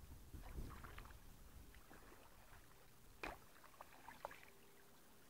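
Faint knocks and clicks from a canoe being handled, with a brief low rumble in the first second.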